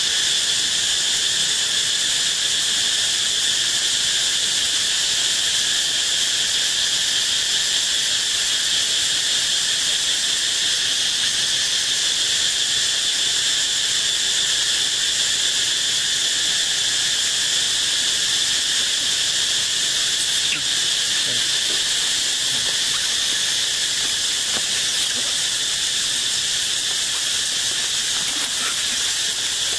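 Steady insect chorus: a continuous high-pitched buzz that holds level without a break.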